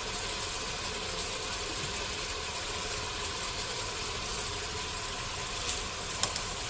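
Spices and chickpeas frying in a pot of onion-tomato masala with a steady hiss and hum, with a couple of light clicks about six seconds in.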